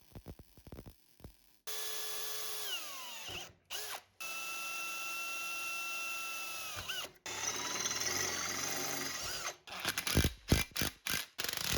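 A handheld power tool motor running in three bursts of a few seconds each, each one steady and then sagging in pitch as it winds down. Light knocks and clatter come before the first burst and after the last.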